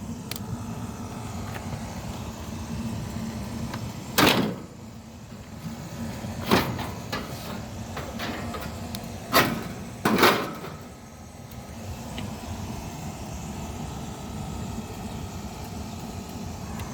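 Clunks and scrapes of the window air conditioner's cover and screws being worked off, four louder knocks about four, six and a half, nine and a half and ten seconds in, over a steady low hum.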